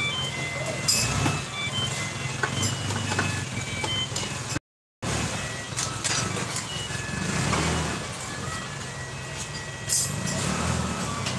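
Low steady vehicle-like rumble with occasional sharp metallic clicks of hand tools working on the engine.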